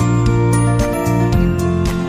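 Background music with a steady beat and plucked-string notes.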